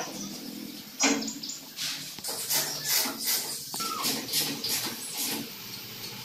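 Irregular metal clinks, knocks and scrapes from hands and tools working on the steering column of a steel tube-frame buggy, with a sharper knock about a second in and a short squeak a little past the middle.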